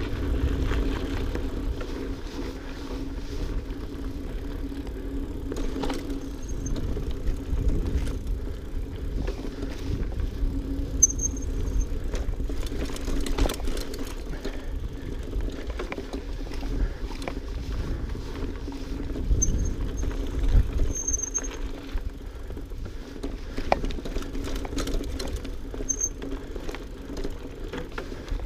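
GT Aggressor Pro mountain bike rolling fast along a dirt trail: tyre noise with a running clatter of small knocks and rattles over the bumps, under a low wind rumble on the microphone. A few short high squeaks come and go.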